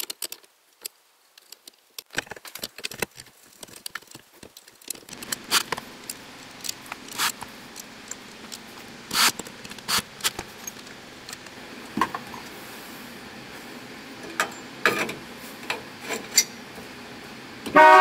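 Metal clicks, clinks and rattles of parts and tools as the steering wheel and horn ring are refitted to the column, over a faint steady hum that starts about five seconds in. Near the end, the 1966 Chrysler Newport's horn gives one short, loud honk: the horn works again after reassembly.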